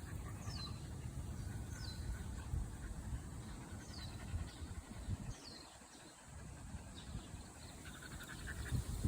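Birds calling in short, quick falling chirps every second or two, over a low outdoor rumble and soft thuds of footsteps on a path.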